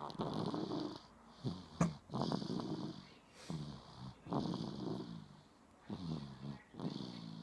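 Snoring: a run of short snores, each under a second long, with brief pauses between them. A sharp click comes a little under two seconds in.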